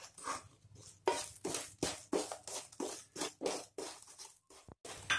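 Wooden spatula stirring and scraping a thick paste of gram flour roasting in ghee around a kadhai, in repeated strokes about three a second from about a second in.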